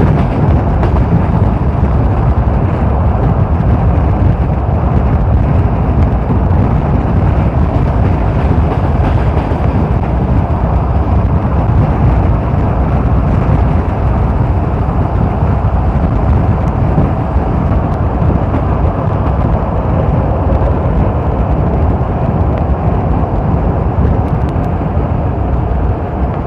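Electric commuter train running at speed: a loud, steady rumble of its wheels on the rails.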